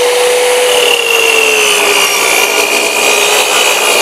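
TNT 8-inch sliding miter saw running and crosscutting a wide wooden board. Its motor whine drops in pitch about a second in as the blade bites into the wood under load.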